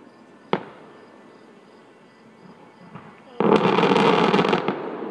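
Aerial fireworks shells bursting: a single sharp bang about half a second in, then a louder, denser burst of noise about three and a half seconds in that lasts about a second and tails off.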